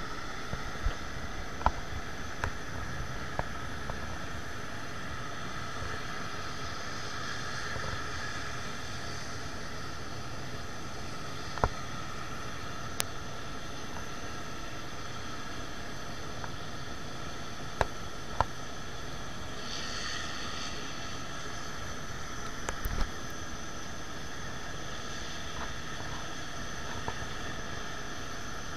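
Steady running noise of a towbarless pushback tug moving an Airbus A350-900 on the ramp: an even hiss with faint high tones held steady throughout, and a few short sharp clicks scattered through it.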